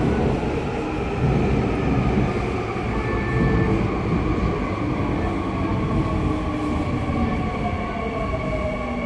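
Seoul Subway Line 2 electric train pulling into a station, its wheels and carriages rumbling past as it slows. A whine rides over the rumble and falls in pitch near the end as the train brakes.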